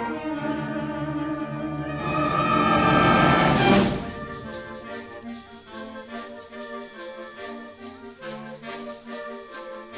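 Concert band playing: a loud, brass-heavy passage swells to a peak, then about four seconds in it drops suddenly to a quieter, lighter passage of short, separate notes.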